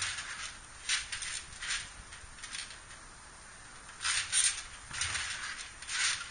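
Trampoline springs and mat sounding with each bounce, a short hissing burst about once a second, with a pause of about a second and a half in the middle and a faint low thump near the end.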